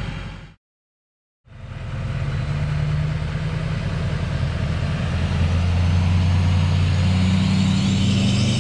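Pickup truck towing a loaded gooseneck flatbed trailer approaches and drives past, its engine hum growing louder and staying loud as it passes near the end, with a faint rising whine. About half a second in, the sound cuts out for about a second.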